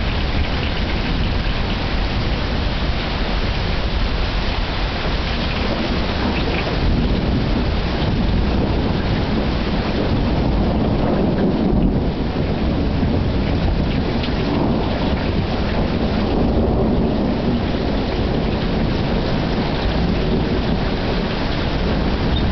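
Steady heavy rain during a thunderstorm, with a long rolling rumble of thunder that swells through the middle and fades again.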